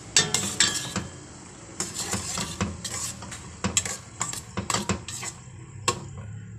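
Metal spoon stirring shrimp and onion in a stainless steel pot, scraping and clinking irregularly against the pan's sides and bottom, with one sharper knock near the end.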